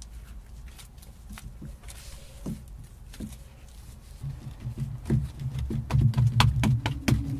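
Hands patting, slapping and pressing a hand-built clay bowl: a run of soft thumps with sharper clicks, coming thicker and louder in the second half.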